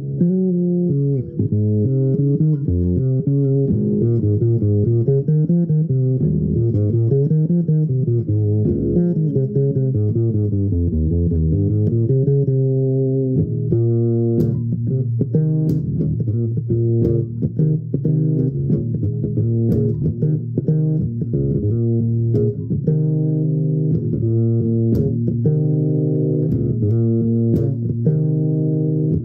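Four-string Epiphone electric bass guitar played solo, fingerstyle. The line slides between pitches for the first dozen seconds, then turns to evenly plucked notes over a steady low note.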